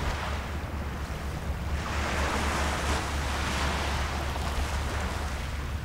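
Sea waves washing onto a sandy beach, with wind rumbling on the microphone; a wave swells up and falls away about two to three seconds in.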